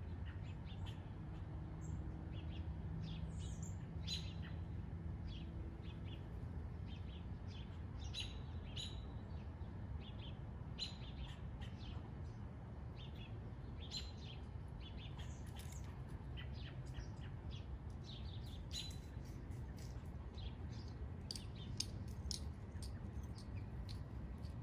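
Small birds chirping, with many short high calls scattered throughout, over a steady low rumble.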